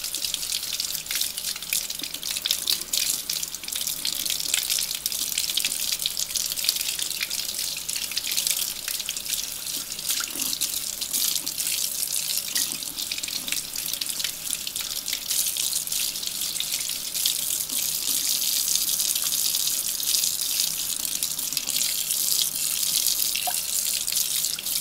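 Kitchen tap running steadily into a sink, the stream splashing over gloved hands and small brass parts held under it.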